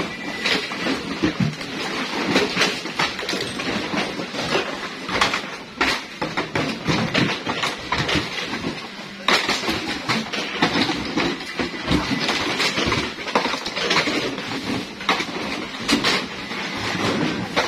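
Hard plastic crates clattering and knocking against each other as they are pulled from a heap and tossed into stacks: many quick, overlapping knocks with no pause.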